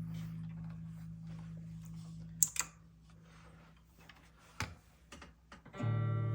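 Electric guitar chord ringing through a Line 6 modeling amp and fading away, followed by a few sharp plastic clicks. Near the end a new chord starts and rings on.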